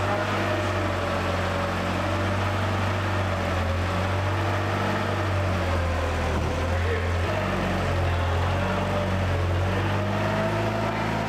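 Forklift engine running steadily: a low hum with a thin whine that drifts slowly up and down in pitch.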